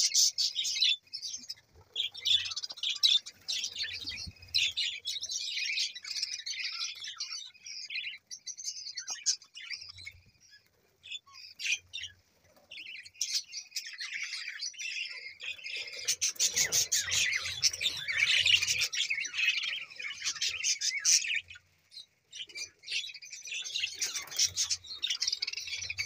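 A flock of budgerigars chattering: a dense, continuous mix of quick chirps and warbles. It thins for a few seconds about halfway through, then grows louder again.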